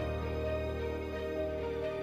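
Slow background music of held notes over a sustained bass.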